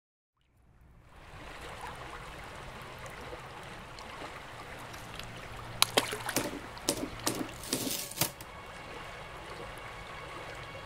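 Running water fading in and flowing steadily, with several sharp splashes about six to eight seconds in.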